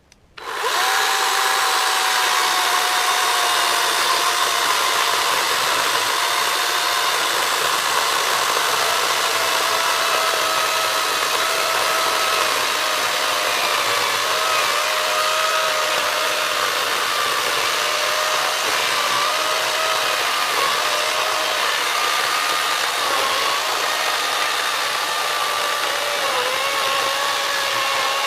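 Battery-powered electric chainsaw running at full speed with a steady electric whine, its pitch sagging slightly at times. It starts about half a second in and cuts off near the end.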